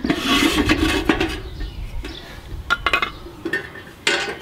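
Son of Hibachi portable charcoal barbecue being unfolded: its wire legs and hinged metal body scrape and clink, with a few sharp clicks about three seconds in.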